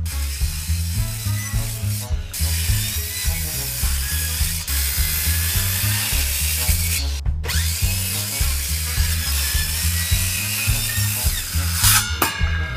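Corded circular saw cutting through a wooden boat's cockpit sole. It pauses briefly twice, about two and seven seconds in, whining back up to speed after the second pause, and stops near the end.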